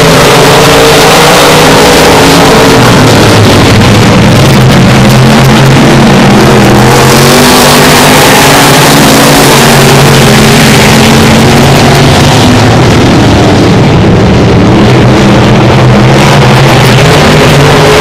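Several dirt-track stock cars racing, their engines running hard together in a loud, continuous drone that shifts slightly in pitch. From about seven to twelve seconds in, a louder rush of noise comes in as cars pass close by.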